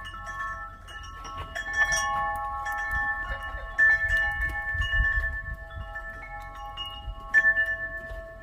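Wind chimes ringing: several metal chime notes struck at irregular moments, each ringing on for a few seconds and overlapping the others.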